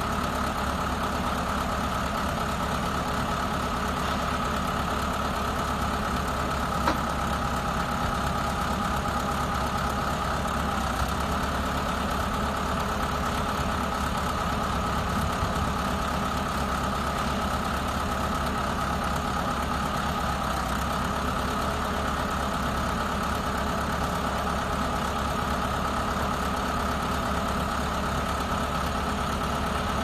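Small farm tractor's diesel engine idling steadily, with a constant high whine over the engine note.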